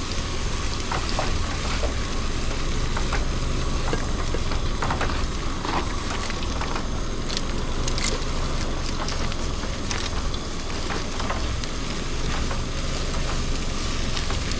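Ground beef frying in a skillet on a gas stove: a steady sizzle dotted with frequent small crackles and pops.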